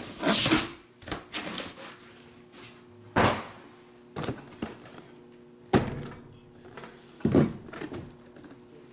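Cardboard trading-card boxes being handled and shifted on a table: a handful of dull knocks and thunks, spread irregularly over several seconds.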